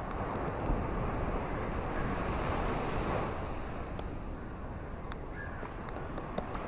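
Steady rain with wind and surf. The noise swells for a couple of seconds near the start, and a few faint ticks come in the second half.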